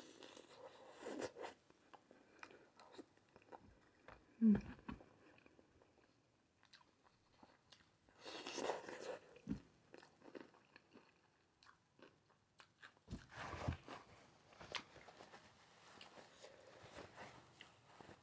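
Close-miked eating: biting, crunching and chewing through a meal of sausage, rice and cucumber, with wet mouth clicks and smacks. A brief loud throaty sound comes about four and a half seconds in.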